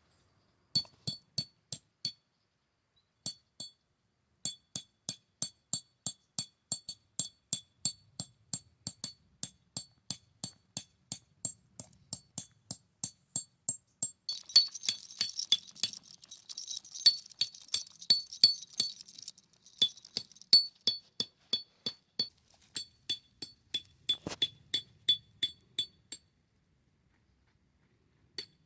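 A steady run of light, glassy clinks, between two and three a second, with a hissing wash for about five seconds in the middle; the clinks stop near the end.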